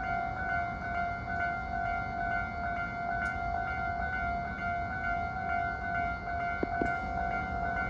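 Railway level-crossing warning bell ringing, a steady pitched tone that pulses about twice a second, over low train rumble. Two short clicks come in the second half.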